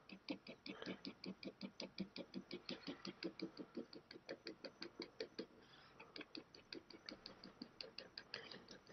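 Ballpoint pen scratching on sketchbook paper in quick, short hatching strokes, a faint rapid ticking at about six to seven strokes a second, with a short break a little over halfway through.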